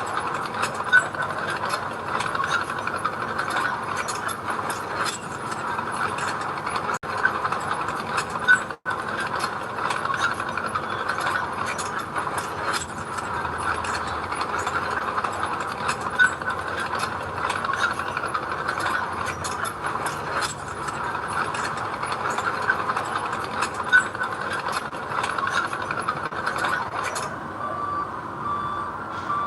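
Heavy earthmoving machinery working, a steady rattling clatter with many small clicks. Near the end a vehicle's reversing alarm starts beeping, several beeps a second.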